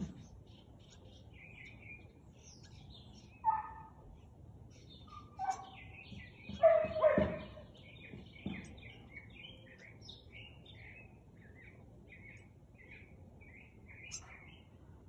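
A husky gives a few short, scattered barks, the loudest pair about seven seconds in. Small birds chirp throughout the quieter stretches.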